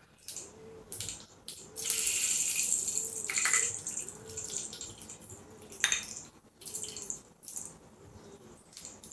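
Hot mustard oil sizzling in a kadai as whole spices are dropped in: a burst of hiss about two seconds in, lasting roughly two seconds, with small clicks and taps of the spices being handled around it.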